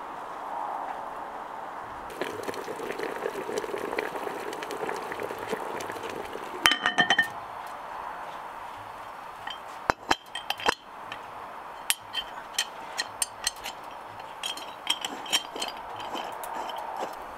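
Kitchen utensils and dishes clinking: a quick run of ringing clinks about seven seconds in, then scattered taps and clinks through the rest.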